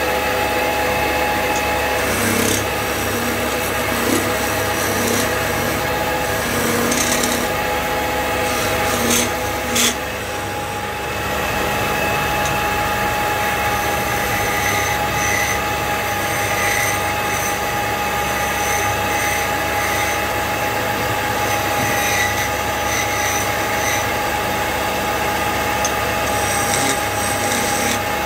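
Belt-driven wood lathe running with a steady hum while a hand-held turning tool scrapes and cuts a spinning wooden spindle. The rasping cut is continuous, easing off briefly about ten seconds in.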